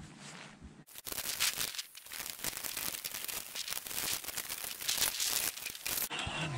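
Snow being scraped off a low roof with a long roof rake, played back fast-forward so it becomes a dense, rapid crackling and scraping. It starts abruptly about a second in and stops just before the end.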